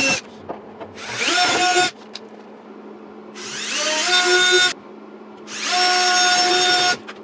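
Power drill with a 3/16-inch bit drilling mounting holes in a fiberglass motorcycle fairing, run in three short bursts of a few seconds or less, each a whine rising as the motor spins up and then holding steady.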